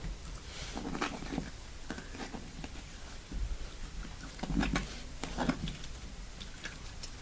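Hands pressing and patting glittery slime on a wooden floor: soft squishing pats, a cluster about a second in and two more a little past halfway, with small sticky clicks between.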